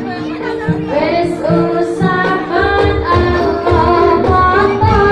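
Live Javanese folk music: a woman singing a wavering melody over held instrument tones and a steady drum beat.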